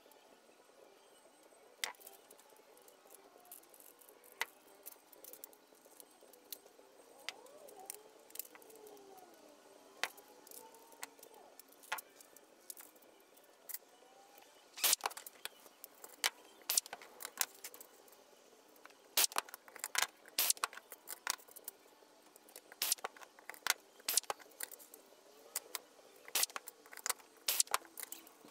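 Small steel screws and nut plates clicking and clinking against a thin aluminium panel and the bench as they are set in place by hand. The clicks are scattered at first and come thick and fast from about halfway through.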